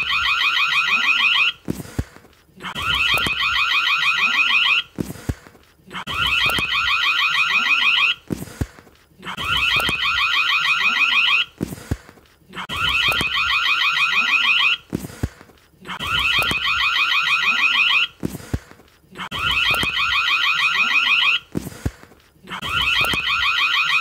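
Indoor doorbell ringing over and over, each ring about two seconds long with a fast rattling pulse, one every three seconds or so, with a short click between rings.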